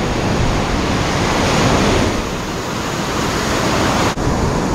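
Ocean surf breaking and washing up the beach, with wind buffeting the microphone; the wash swells about one and a half seconds in.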